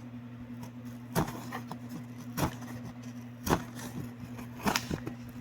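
Hard plastic clamshell packaging being bent and pried apart by hand, giving sharp cracks about once a second with lighter crackles between them, over a steady low hum.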